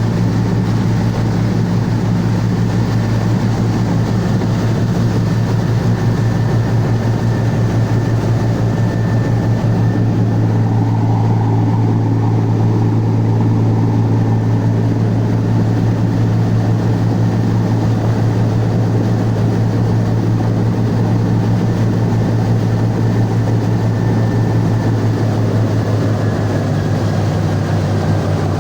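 Cummins marine diesel engine of a boat running steadily with a deep, even hum. Its pitch shifts slightly near the end.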